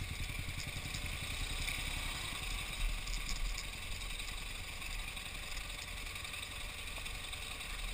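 Motorcycle engine running steadily at low trail speed, with a few light rattles about three seconds in.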